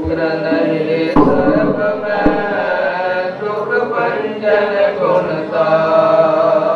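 Sikh devotional chanting by male voices, in long held notes that shift pitch slowly.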